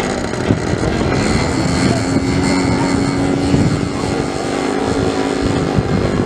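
Engines of two radio-controlled scale Spitfire models running, with a steady engine note through the middle and the pitch shifting near the end as the throttle changes.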